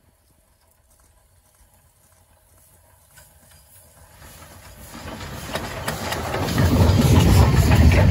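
Somerset & Dorset Joint Railway 7F 2-8-0 steam locomotive running towards and past with a train of goods vans: faint at first, it grows steadily louder from about halfway and is at its loudest near the end as the engine passes close by.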